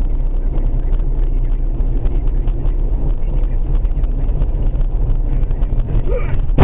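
Car driving, recorded from inside the cabin on a dash cam: a steady low rumble of road and engine noise. A sudden much louder noise starts right at the end.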